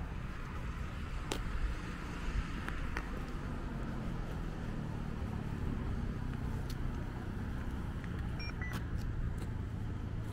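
City street traffic on wet roads: a steady rumble of passing cars with tyre hiss. A couple of short high chirps sound near the end.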